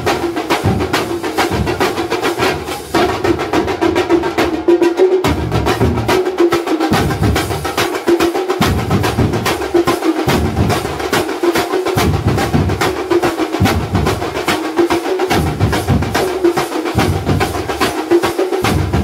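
Thambolam drum band: a large group of big frame drums and smaller stick-played drums beaten together in a loud, fast, driving rhythm, with metal hand cymbals clashing on the beat.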